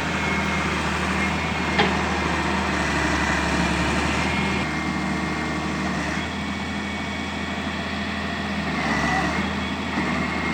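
Excavator's diesel engine running steadily, with one sharp metallic knock about two seconds in.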